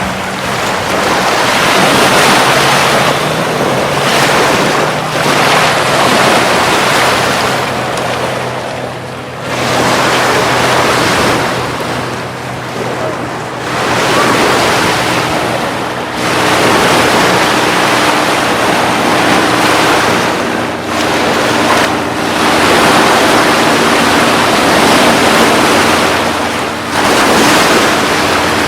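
Atlantic surf breaking and washing up the beach, the noise swelling and falling back every few seconds, with wind buffeting the microphone. A faint steady low hum runs underneath.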